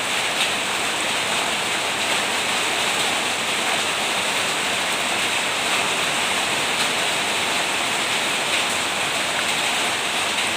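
Heavy rain falling steadily, a dense even hiss with a few sharper drop hits.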